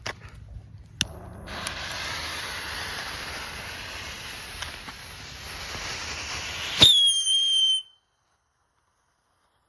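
Novelty tank firework going off: a steady hiss for about five seconds, then a loud bang at once followed by a high whistle lasting about a second that cuts off abruptly.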